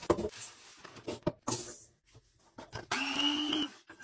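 Kitchen handling sounds: a stainless steel mixing bowl set down on a wooden counter with a knock, a few short clatters, then dry breadcrumbs poured into the steel bowl with about a second of steady hiss near the end.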